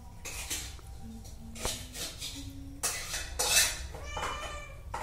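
Hungry cats meowing for food, with one clear meow about four seconds in, amid short clinks and clatter of stainless-steel food bowls.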